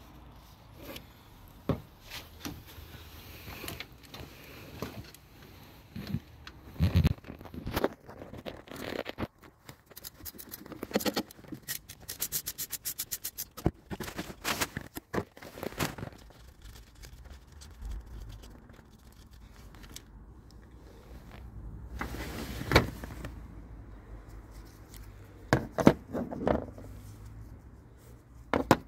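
Hand tools and metal parts being handled: scattered clicks, knocks and scrapes, with a quick even run of clicks about twelve seconds in and a sharper knock a little past twenty-two seconds.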